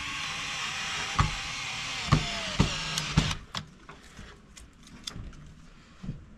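A cordless drill-driver runs for about three seconds with a steady whine and a few clicks, tightening the screws that hold a floodlight fixture to its box. Then come lighter clicks as the plastic lamp heads are moved by hand.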